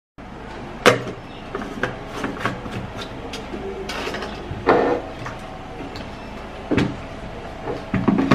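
Plastic clunks and clicks of a blender jar being handled: the blade base is fitted onto the jar and the jar is set down onto the motor base. There are about a dozen sharp knocks, the loudest about a second in and another strong one near the middle; the motor is not running.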